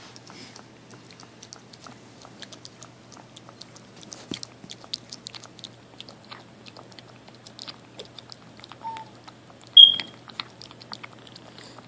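Maltese puppy lapping puppy formula from a bowl: many small, quick, wet clicks of its tongue in the liquid, several a second. About ten seconds in there is one brief, much louder high-pitched squeak.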